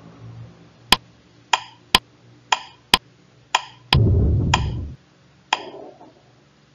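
Countdown timer sound effect: alternating sharp ticks and ringing tocks about two a second, then a low buzzer about four seconds in, lasting about a second as the count reaches zero, followed by one more tick.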